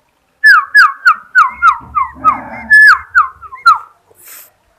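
Sooty-headed bulbul giving a quick run of about ten loud whistled notes, each sliding sharply downward, about three a second.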